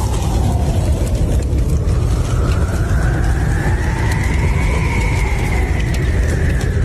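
Strong sandstorm wind buffeting the microphone with a heavy low rumble, and a faint howl that slowly falls, then rises to its highest about two-thirds of the way through, and falls again.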